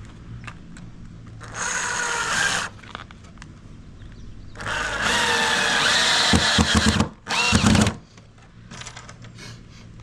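Power drill driving screws into wood boards: three runs of the motor's whine, a short one about a second and a half in, a longer one of about two and a half seconds midway, and a brief one just after it.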